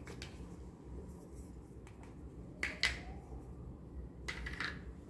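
Hard plastic toy pieces clicking and tapping as a toy eggplant is handled and set down on a plastic toy plate: a click at the start, two louder clicks about halfway through, and a few more near the end, over a low steady hum.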